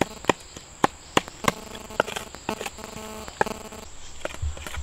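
Sharp chopping knocks, about a dozen at an uneven pace, from a blade cutting plant material. Under them run a steady low hum, which stops near the end, and a thin, steady high insect tone.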